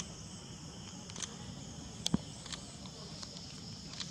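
Steady high-pitched chorus of insects, with a few short sharp clicks scattered through it, the strongest about two seconds in.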